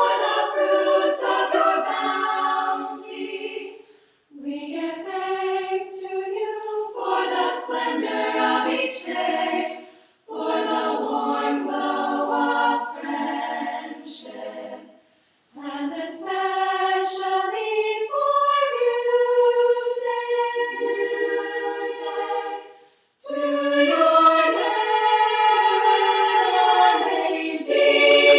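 Women's choir singing a cappella in several phrases, with brief pauses between them about 4, 10, 15 and 23 seconds in.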